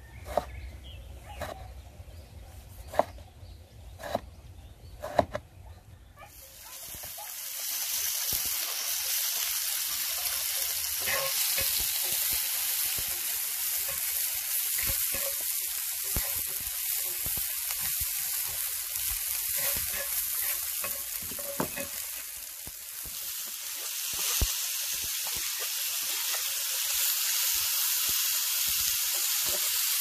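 A chef's knife cuts through a tomato on a wooden cutting board, about five sharp cuts. From about six seconds in, onion and garlic sizzle steadily in hot oil in a cast-iron pan while a wooden spatula stirs them, with small scrapes and knocks.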